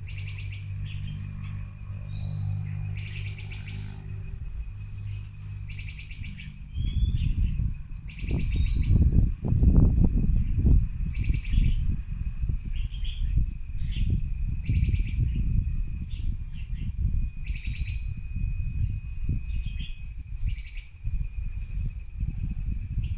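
Young bulbul chirping over and over in short calls and quick little rising notes, a few each second. From about seven seconds in, a loud low rumbling noise sits beneath the chirps.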